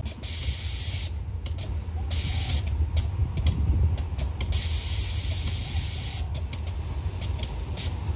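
Compressed air hissing from the train's air system in stretches that cut on and off abruptly, over the steady low rumble of an idling diesel locomotive.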